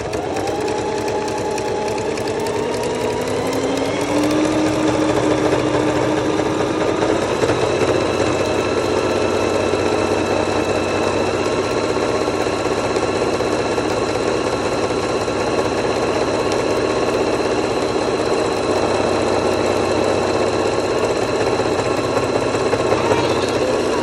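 Singer electric sewing machine running continuously as it stitches through cotton fabric. It picks up speed over the first few seconds, then runs at a steady pace.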